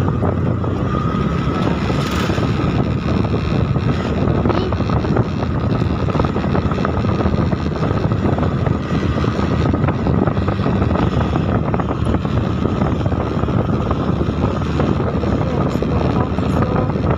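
A motor vehicle running steadily while travelling along a road, with wind rushing over the microphone.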